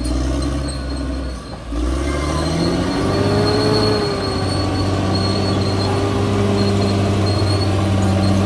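CAT D6R XL bulldozer's diesel engine dipping, then revving up about two seconds in and running steadily at high revs, with a thin high-pitched squeal over it.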